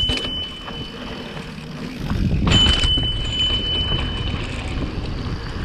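Mountain bike rolling down a loose dirt trail, with tyre-on-dirt and wind rumble that gets louder about two seconds in. A thin, steady high squeal sounds right at the start and again for about a second and a half from two and a half seconds in: disc brakes squealing as the rider rolls in slow.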